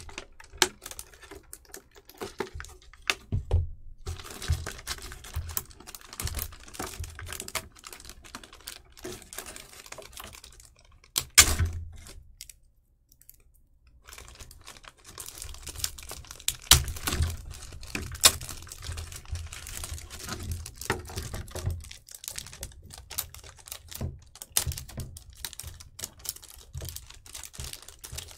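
Scissors cutting packing tape and hands handling a figure's plastic blister trays and cardboard box: a long run of irregular clicks, taps and crinkles, with a short lull about halfway through.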